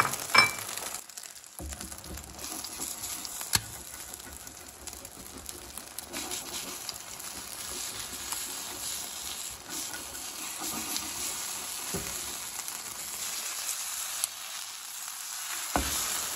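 Egg omelette sizzling in oil on a nonstick tawa, a steady frying hiss. A few sharp clicks come as the spatula knocks against the pan while lifting and folding it: one right at the start, one a few seconds in, one about 12 seconds in and one near the end.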